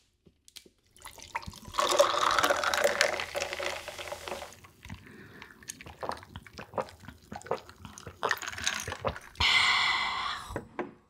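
Icy Tank Boy pear slush sucked from its squeeze pouch: a long wet slurp about two seconds in, small wet mouth clicks and squishes, then a second, shorter slurp near the end.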